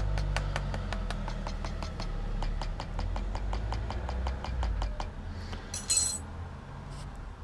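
Rapid light tapping on a rubber casting mould just filled with molten pewter, about five taps a second, to help the metal flow through the mould; the tapping stops about four and a half seconds in, over a steady low hum. A short clink follows near the end.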